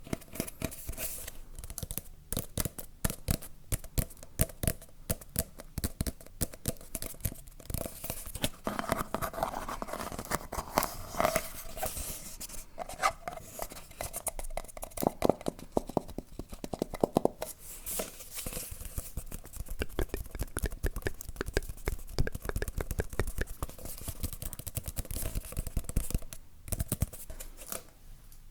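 Close-miked ASMR trigger sounds: objects being scratched, rubbed and tapped in quick, irregular strokes.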